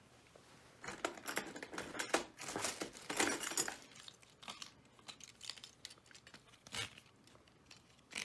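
Small hand tools being picked up and handled: a busy patch of clicks, rattles and rustling about a second in, then scattered light clicks of metal tools against each other and the bench.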